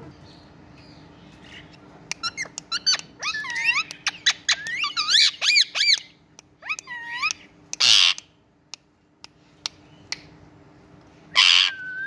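Indian ringneck parakeets calling: a rapid run of sharp clicks and quick squeaky whistles sweeping up and down in pitch for several seconds. Then come two short, harsh screeches a few seconds apart.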